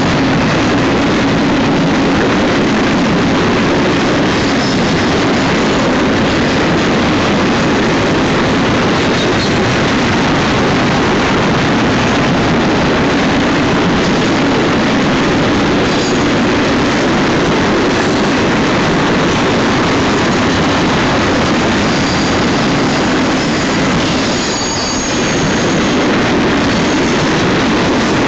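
Union Pacific double-stack container train rolling past at close range: a steady, loud rumble and rattle of the container cars on the rails. Faint high wheel squeals come in near the end.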